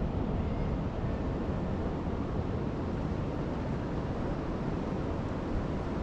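Distant ocean surf: a steady, gentle roar with no single wave crash standing out.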